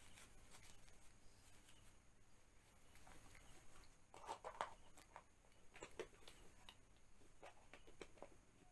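Faint rustling and small clicks of hands handling a baby monkey's disposable diaper and a fleece towel, with a louder cluster of rustles about four and a half seconds in.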